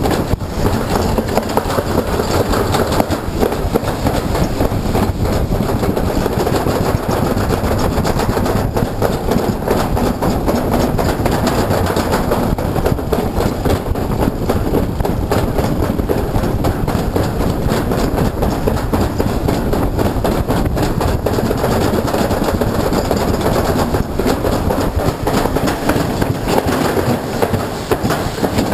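Summer toboggan sled running down a stainless-steel trough, a loud, continuous rattle and rumble of the sled in the metal channel.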